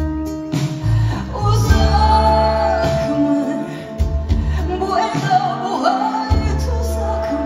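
Live band performance: a woman sings over bass guitar, acoustic guitar and drums.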